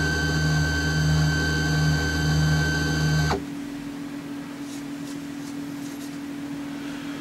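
A CNC mini mill's motors run with a steady whine over a low hum, then cut off suddenly a little over three seconds in. A faint electrical hum and a few light clicks from handling at the spindle remain.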